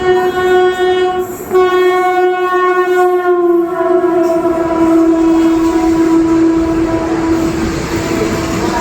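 Locomotive horn of the arriving Sabarmati Express sounding one long, steady blast, with a brief break about a second and a half in and its pitch falling slightly around four seconds in. The train's rumble grows under it.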